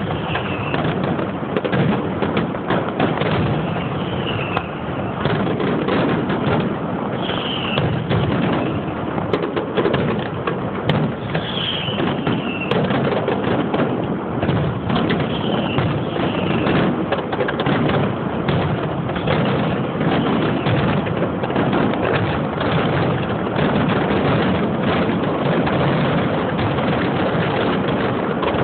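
Pirotecnia Gironina aerial fireworks display: a continuous barrage of shell bursts and crackling. There are a few short falling whistles in the first half.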